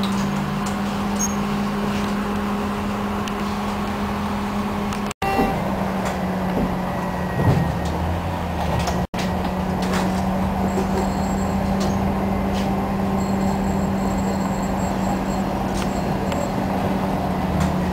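Tram running, heard from inside the car: a steady low hum with rolling noise and a knock about seven and a half seconds in. The sound cuts out for an instant twice, about five and nine seconds in.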